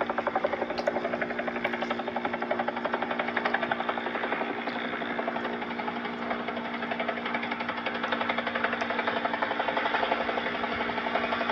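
Helicopter sound effect: rotor blades chopping in a fast, steady rhythm over a constant engine hum.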